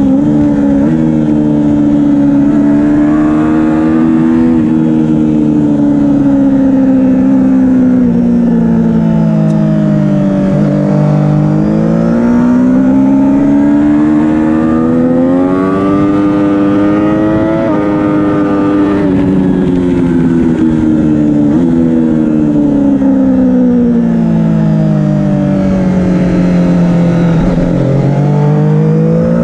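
2012 Triumph Daytona 675R's 675cc inline-three engine at racing speed, heard from on the bike. Its pitch falls as it slows for corners, climbs hard under acceleration, steps down at a quick upshift about halfway through, and rises again near the end, over a steady rush of wind.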